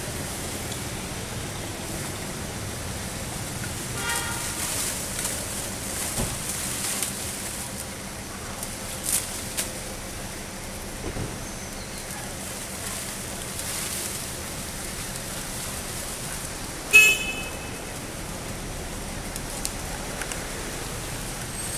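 Steady outdoor background hiss with a few brief, high, squeaky calls, the loudest a sharp chirp about three-quarters of the way through.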